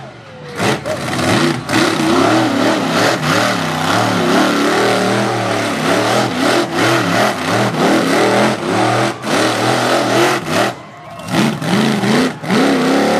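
Predator monster truck's engine revving hard, its pitch swinging up and down over and over as the throttle is worked through wheelies and donuts. The engine briefly drops off just after the start and again about eleven seconds in.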